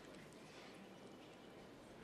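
Near silence: faint steady background noise of the broadcast.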